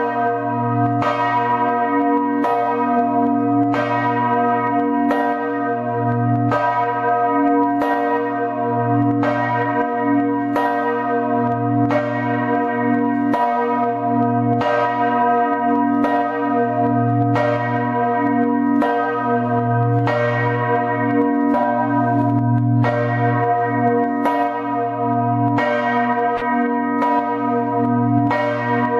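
Bells of the campanile of St Mark's in Venice pealing: a quick, even run of strokes, each under a second apart, over a sustained ringing hum.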